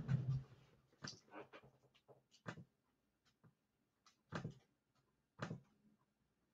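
Faint handling noise: about six short, light taps and rustles spaced irregularly, with near silence between them.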